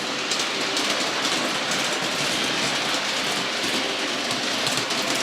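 A Playmobil electric toy train running on its track: a steady motor whir with faint clicking from the wheels on the rails.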